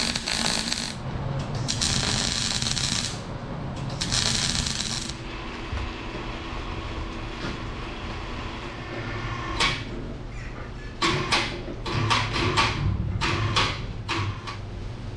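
Three short bursts of MIG welding arc, a bright hiss and crackle, in the first five seconds. Then a steady low hum and, from about ten seconds in, a run of sharp metallic clanks and clinks as the steel loader bucket hanging from its chain is handled.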